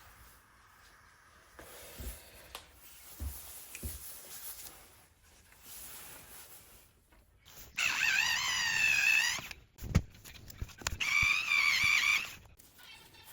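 A rooster crowing twice, each crow about a second and a half long, with a few light knocks of handling between and before them.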